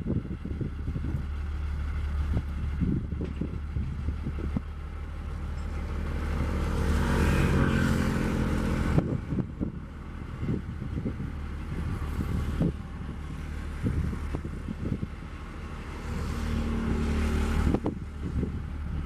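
Diesel engine of a yellow railway catenary work vehicle running. Its note rises to a loud peak about eight seconds in, falls back, and swells again near the end. Wind buffets the microphone in short gusts.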